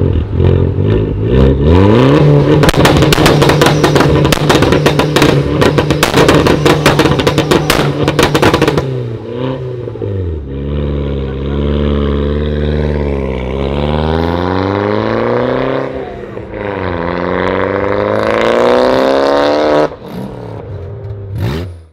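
Abarth 595's turbocharged four-cylinder through a decatted, straight-piped Capristo exhaust, revved hard while standing still. For the first several seconds the revs are laced with rapid crackling and popping. After that the revs rise and fall repeatedly and more cleanly. Near the end it is quieter, heard from farther off.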